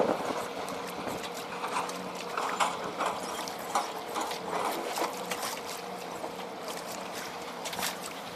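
Water splashing and lapping against a kayak hull in short irregular slaps, over a steady low electric hum from the kayak's Jarvis Walker trolling motor running.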